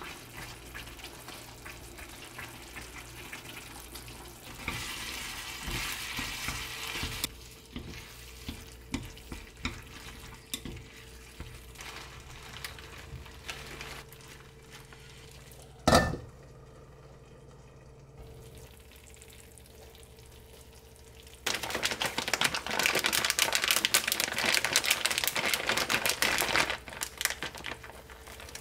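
Food frying in a pan: bursts of sizzling and crackling, with light clicks of a utensil against the pan, one sharp knock partway through, and a long loud stretch of sizzling in the second half.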